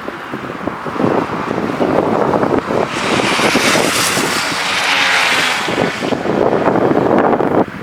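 Jet airliner passing close by. Its engine noise swells into a loud rushing hiss about three seconds in and fades again about three seconds later, over wind buffeting the microphone.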